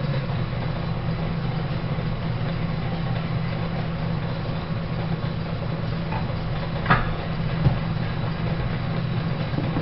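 Century-old belt-driven Gray metal planer running under cut, its shear tool taking a rolled chip off mild steel as the table strokes. It makes a steady drone, with a brief knock about seven seconds in.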